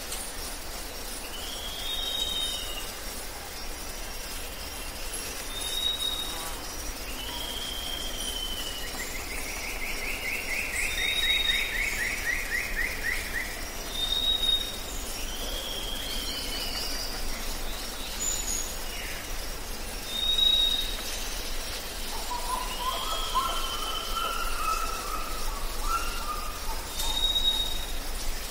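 Wild birds calling in the background: a short high whistle repeats every few seconds, each followed by lower slurred notes, with a rattling trill about ten seconds in and a run of lower notes later on, over steady outdoor background noise.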